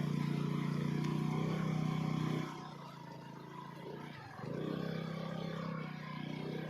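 Small motorcycle engine running steadily under load on a rough dirt track, then easing off about two and a half seconds in, nearly dropping out about four seconds in, and picking up again.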